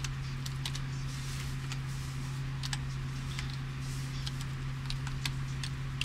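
Scattered, irregular keystrokes on a computer keyboard as login details are typed in, over a steady low hum.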